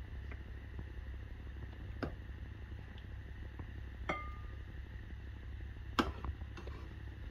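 Metal serving spoon clinking against the aluminium pan and ceramic bowl while curry is dished out: a few light clinks, one about two seconds in, one about four seconds in that rings briefly, and the loudest about six seconds in. A steady low hum runs underneath.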